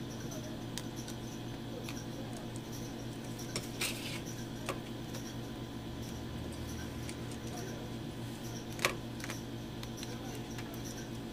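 Small clicks and taps of a screwdriver and fingers working on a smartphone's plastic frame and logic board, a few scattered clicks with the sharpest about nine seconds in, over a steady low hum.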